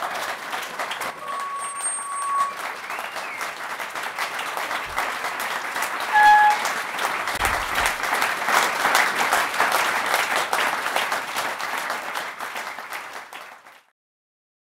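Audience applauding, the clapping growing fuller partway through, then cutting off suddenly near the end.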